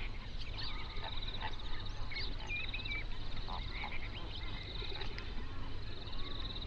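Flamingo flock gabbling and honking across a lake, mixed with chirps of smaller birds and a fast, high trill that comes and goes.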